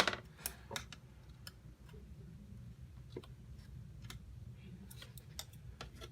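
Scattered light clicks and taps of hemostats and a plastic support strap being worked on a circuit board, the sharpest right at the start, over a low steady hum.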